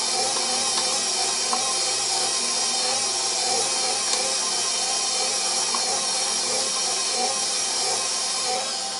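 KitchenAid stand mixer running steadily as it mixes bread dough: an even motor whir with a few faint ticks. It eases slightly quieter near the end.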